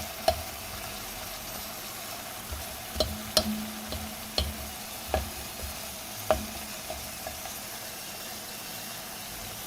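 Unpeeled garlic cloves sizzling in olive oil in a frying pan, with a few sharp knocks of the utensil against the pan as they are stirred until golden.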